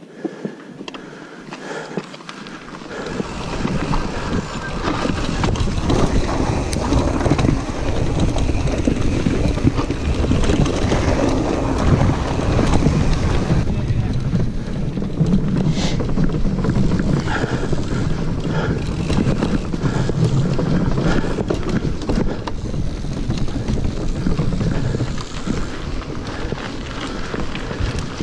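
Wind rushing over a mountain bike's action-camera microphone, mixed with the rumble and rattle of the bike rolling over a rough trail and a wooden boardwalk. It builds over the first few seconds as speed picks up, then stays steady and loud.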